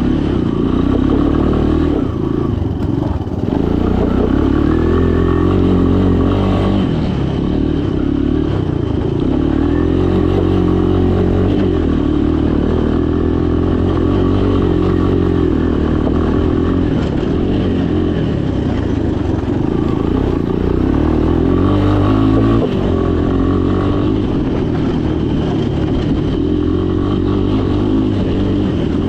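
Three-wheeler's engine running steadily under way, its revs rising and falling as it is ridden.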